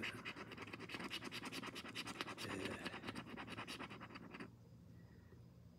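A coin scratching the coating off a paper scratch-off lottery ticket in quick repeated strokes, stopping about four and a half seconds in.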